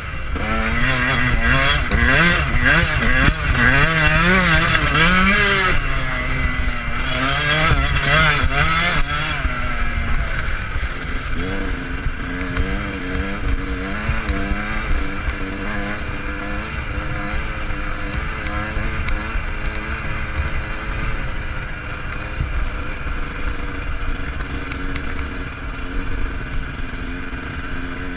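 Yamaha YZ125 two-stroke single-cylinder motocross engine revving rapidly up and down for about the first ten seconds, then running steadier at lower revs.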